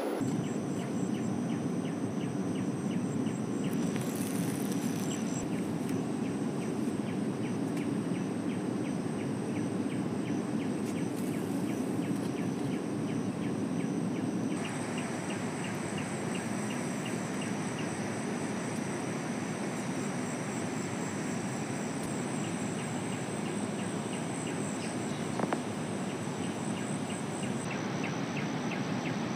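Outdoor ambience of a river: a steady rush of flowing water, with insects droning in thin high steady tones and a regular cricket-like chirp of a few pulses a second.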